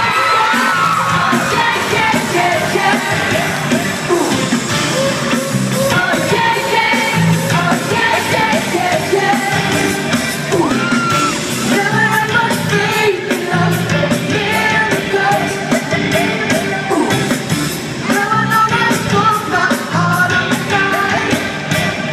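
Live pop band with horns, electric guitars and drums playing while a lead singer sings, heard loud from among the audience, with yells from the crowd.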